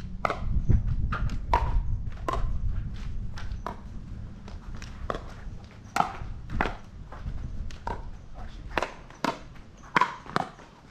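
A pickleball rally: a steady string of sharp pocks as paddles hit the hollow plastic ball and it bounces on the court, roughly one or two a second.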